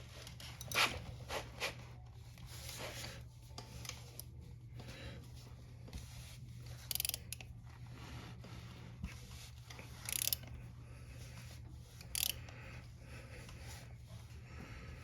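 Motorcycle chain press tool being worked on a drive-chain master link: faint metal rubbing and scraping, with four short sharp metallic rasps a few seconds apart.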